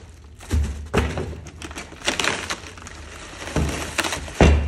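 Clear plastic bag crinkling and rustling as a turbocharger is unwrapped by hand, with several dull thumps. The loudest thump comes near the end.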